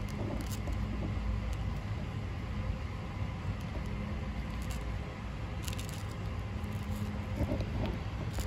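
Baby sulcata tortoises biting and tearing leafy greens: scattered faint crunching clicks, a small cluster of them about six seconds in, over a steady low rumble.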